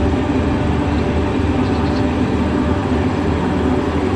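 Diesel engine of a LiuGong single-drum vibratory roller compactor running steadily under load as the machine rolls forward over a freshly levelled layer of crushed stone, a constant low hum with no change in pitch.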